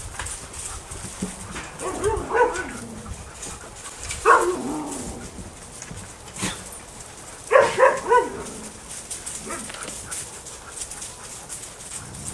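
Harnessed sled dogs barking and yelping, with several loud calls that fall in pitch, the loudest about four and eight seconds in.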